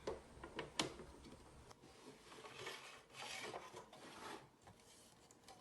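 Puzzle sorting trays being handled: a couple of light clicks, then a few seconds of faint rubbing and sliding.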